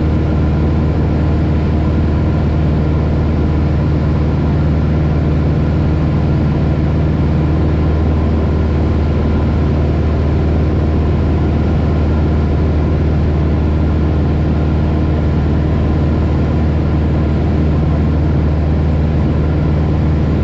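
Steady drone of a single-engine propeller light aircraft's engine and propeller at cruise, heard from inside the cabin: a deep even hum that does not change.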